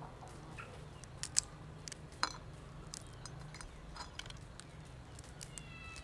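Scattered sharp clicks and cracks of parrot crab shells being pulled apart by hand, with a faint steady hum underneath.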